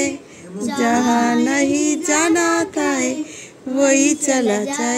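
A girl singing a song without accompaniment, in drawn-out phrases with short breaks for breath between them.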